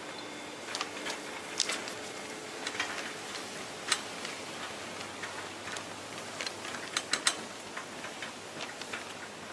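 Red plastic shopping cart rattling as it is pushed through a supermarket aisle, giving irregular sharp clicks, the loudest about four seconds in and around seven seconds, over a steady hiss of store background noise.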